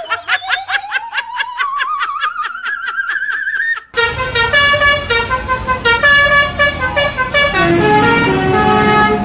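A musical 'telolet' bus horn sounds a tune of stepped, held notes from about four seconds in. Before it comes a rising, wavering tone with rapid ticking, like a toy or cartoon sound effect.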